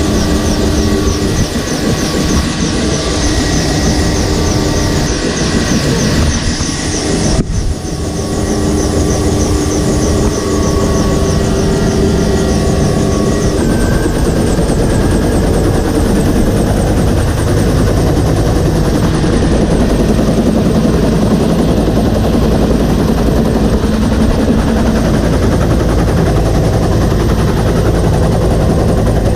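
Vietnam-era military helicopter running, heard from on board: a loud, steady mix of engine whine and rotor noise, with a brief dip about seven seconds in.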